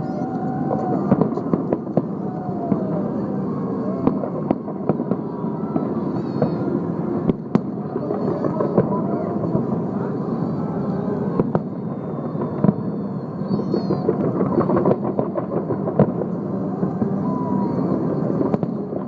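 Fireworks display: a dense, continuous rumble of bursts with many sharp bangs at irregular intervals, over the voices of a crowd.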